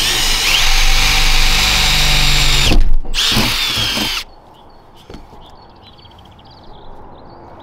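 Power drill boring a pilot hole through the Ford Transit van's body panel: it runs steadily for nearly three seconds, stops briefly, then runs again for about a second before stopping about four seconds in.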